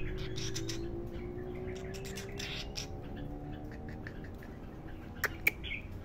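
A caged weaver giving two sharp, short chirps about five seconds in and a softer one just after, over scattered light ticks and a steady low hum.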